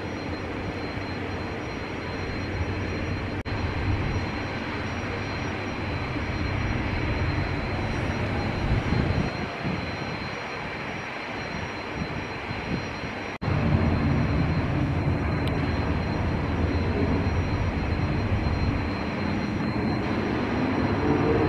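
Business jet turbofan engines running at taxi power: a steady rumble with a thin, steady high whine. The sound changes abruptly twice, about three and a half seconds in and about thirteen and a half seconds in, and is louder after the second change.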